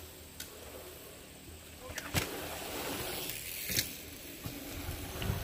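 A BMX bike rolling over packed dirt jumps, its tyres hissing on the dirt for a few seconds, with sharp clicks about two seconds in and again near four seconds.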